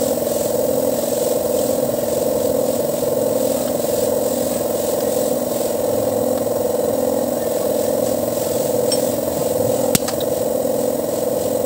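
A steady machine drone, with one sharp click about ten seconds in.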